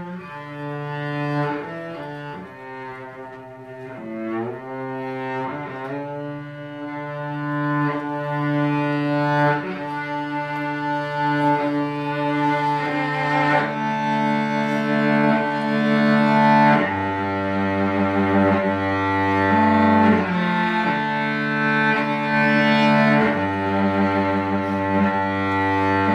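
Solo cello bowed in slow, long held notes. It grows louder about two-thirds of the way through, where deeper notes come in.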